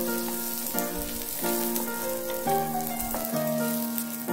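Oil sizzling as garlic, tomato, shallots, whole spices and fresh coriander and mint leaves fry in a pan, with a steady hiss, under background music of held notes that change pitch every second or so.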